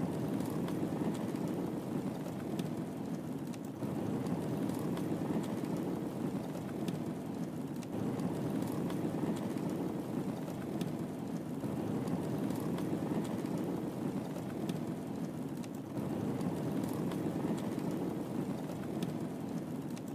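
Wood fire crackling in a fireplace: a steady low rushing of the flames with scattered small sharp pops and snaps.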